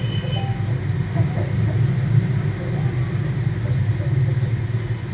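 A steady low rumbling hum, like a motor running, throughout.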